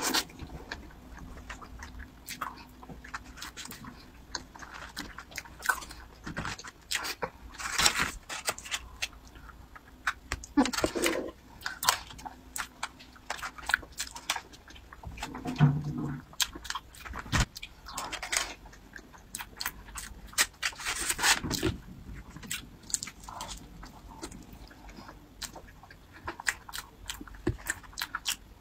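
Close-miked chewing and mouth clicks of someone eating soft layered mousse cake: scattered short clicks, bunched more densely every few seconds.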